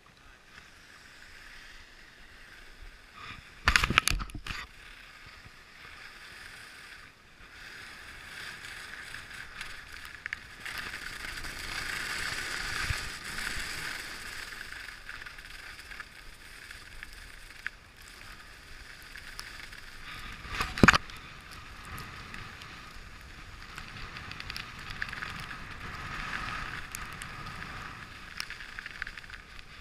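Skis hissing and scraping over groomed snow on a fast descent, the sound swelling and easing with the turns. Two sharp knocks break in, about four seconds in and again about twenty-one seconds in.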